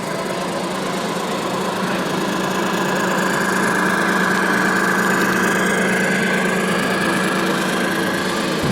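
Radio-controlled model vehicle running steadily: an engine-like hum with a thin high whine that grows stronger a few seconds in.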